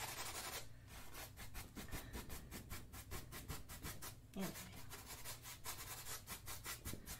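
Small paintbrush brushing quick short strokes of paint onto a canvas, a faint scratchy rub repeated several times a second. The strokes stop briefly near the start and again about four seconds in.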